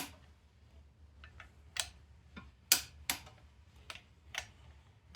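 A click-type torque wrench clicking on the flywheel bolts, a string of sharp, irregular clicks, the loudest near the middle. Each click means a bolt has reached the 55 ft-lb setting.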